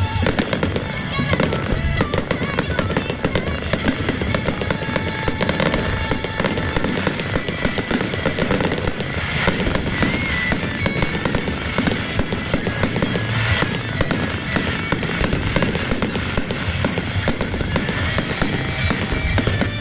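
Fireworks going off in a continuous rapid crackle of many small bangs, with music playing along.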